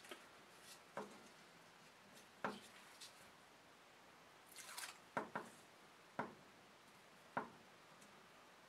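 Quiet handling noise: about seven light plastic clicks and taps, with a brief rustle a little before halfway, as plastic 18650 cell holders are handled and the backing is peeled off their double-sided foam mounting tape.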